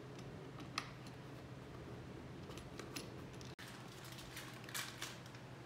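Faint metallic clicks and small rattles of an Allen key turning a leg bolt, heard a few times over a low steady hum.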